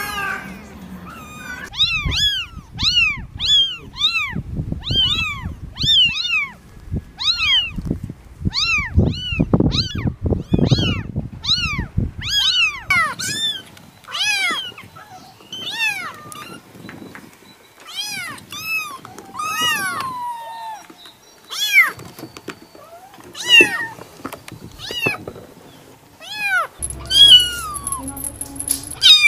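Kittens meowing over and over in short, high-pitched, arching mews, one or two a second, through most of the stretch. Low rumbling and bumping noise lies under the mews for the first ten seconds or so.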